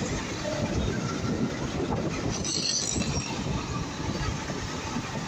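Steady rumble of wind and road noise from a motorcycle riding at speed, with a short high hiss about two and a half seconds in.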